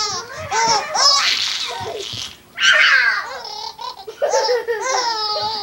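A baby laughing hard in high-pitched fits, about four of them with short gasps for breath between.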